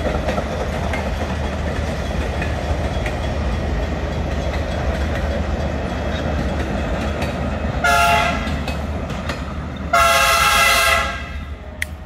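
Passenger cars rolling past on the rails with a steady rumble and wheel noise. Then the train's horn sounds twice: a short blast about eight seconds in and a longer one about two seconds later.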